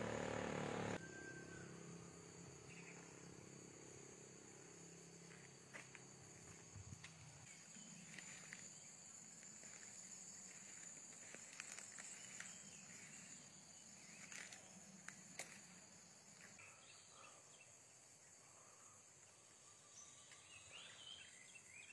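Faint outdoor ambience: a steady high-pitched insect drone, with scattered faint clicks and short chirps. A low hum fades out about seven seconds in.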